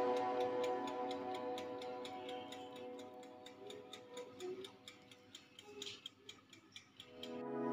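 Steady rapid ticking like a clock or kitchen timer, about four ticks a second, under soft music that fades away over the first few seconds. The ticking stops just before new music swells in at the end.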